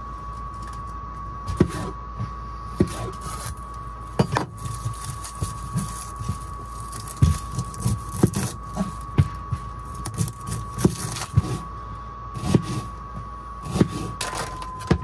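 Chef's knife chopping red pepper and red onion on a plastic chopping board: irregular sharp knocks of the blade on the board. Under it runs a steady high whine that drops slightly in pitch near the end, and a low hum.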